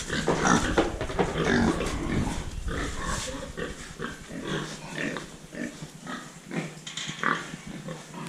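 Pigs on a farm grunting, a dense run of short overlapping grunts.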